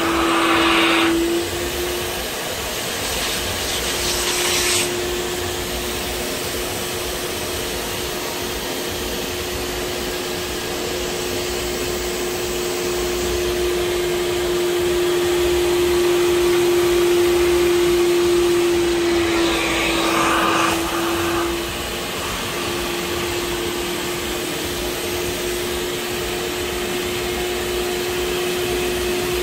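Kärcher Puzzi 10/1 spray extractor's suction motor running steadily with a constant whining hum, as its upholstery nozzle sucks dirty water out of a car seat's fabric. A few times a harsher hiss rushes in for a second or two, once early on and again about two-thirds of the way through.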